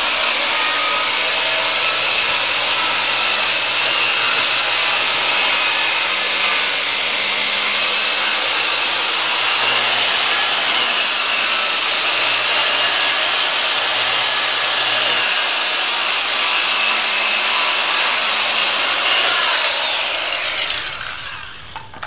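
Handheld circular saw ripping a 15-degree bevel along the length of a thick wooden sill board: a loud, steady whine of the blade in the wood, wavering slightly midway. The saw runs down and fades near the end as the cut finishes.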